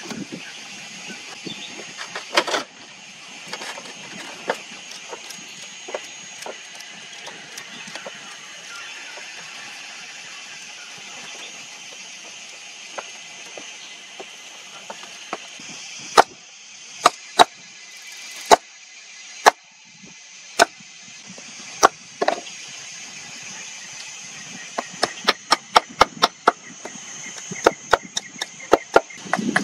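Sharp knocks of wood being worked with hand tools. Single strikes come about a second apart in the middle, then a fast run of them near the end, over a steady background hiss.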